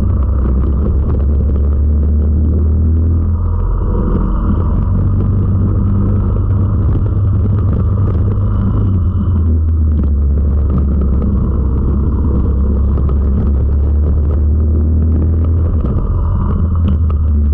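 Four-stroke racing kart engine running hard, recorded from a camera mounted on the kart. The note drops and picks up again about three times as the kart goes through corners.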